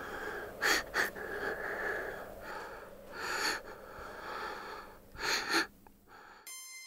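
A girl breathing in and out audibly several times, with a stronger breath about five seconds in. A high ringing tone starts just before the end.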